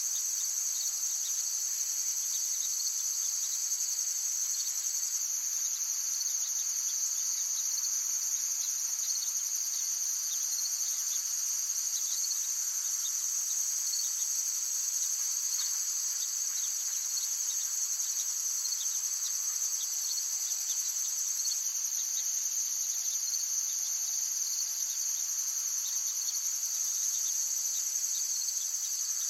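Steady insect chorus: a continuous, high-pitched trilling that neither pauses nor changes.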